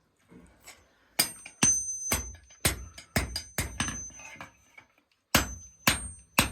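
Hammer blows on metal over an anvil while hand-forging, each strike ringing with a bright metallic tone. About two strikes a second, a pause of about a second and a half, then three more strikes.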